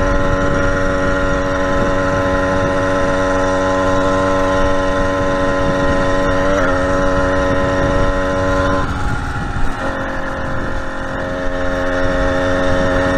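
Two-stroke engine of a motorized bicycle running steadily under way, a buzzing drone held at an even pitch. About nine seconds in the tone breaks up and dips briefly, then steadies again.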